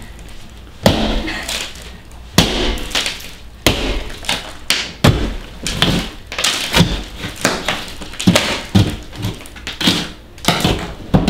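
Drywall being smashed open with a hammer: about a dozen hard strikes at an uneven pace, roughly one a second, each with the crunch of gypsum board breaking away.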